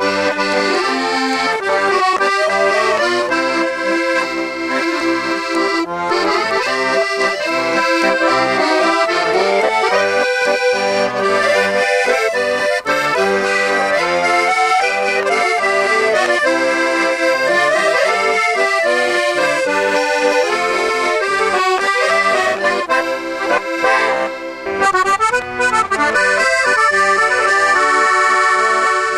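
Background music: an accordion playing a traditional-style tune.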